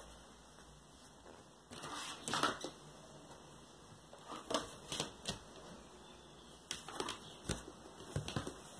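Handling noise of a vinyl record and its cardboard box: a rustle about two seconds in, then a string of light taps and knocks as the disc is set into the box and the lid is brought down.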